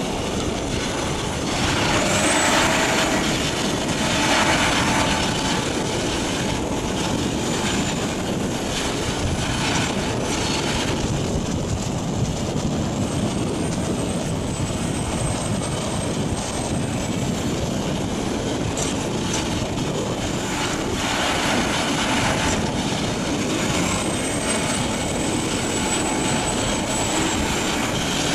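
Morbark HT1684 Predator slow-speed tracked shredder running steadily under load as it shreds waste wood, mixed with the engine of the tracked excavator feeding it. Several louder surges of noise come and go, and a faint high whine rises and then holds three times.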